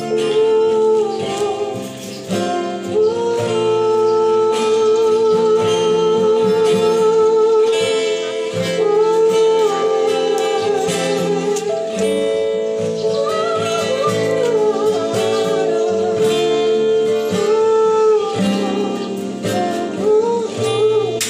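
Acoustic guitar strummed, with a voice singing long held notes that waver with vibrato over it.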